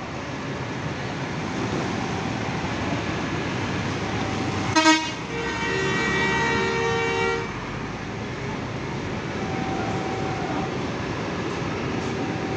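A bus horn sounds once for about two seconds, about five seconds in, over the steady running of bus engines and traffic; a sharp knock comes just before it.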